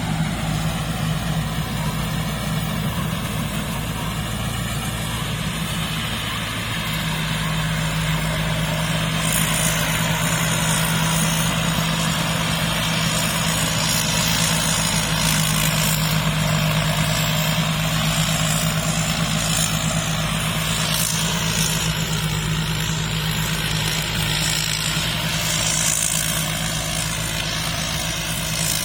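Rice combine harvester's diesel engine running steadily with a constant low hum. From about nine seconds in, a hiss and rattle in the high range joins it.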